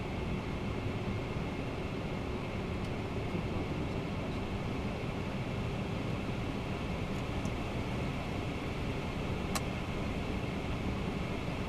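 Steady flight-deck noise of a Boeing 767-300ER in the climb: an even rush of airflow and air-conditioning with a faint steady high whine. A single sharp click sounds about nine and a half seconds in.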